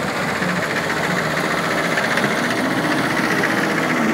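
Small vintage tractor engine running steadily at low speed, pulling a parade float at walking pace.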